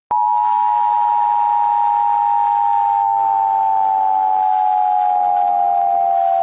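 Emergency Alert System attention signal: two close steady tones near 1 kHz sounding together, starting suddenly and sliding slowly lower in pitch, with a hiss behind them.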